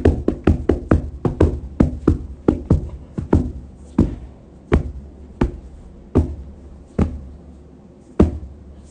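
A homemade sound effect of running footsteps: a run of sharp knocking taps on a hard surface, quick at first, then slowing and spacing out as the runner tires.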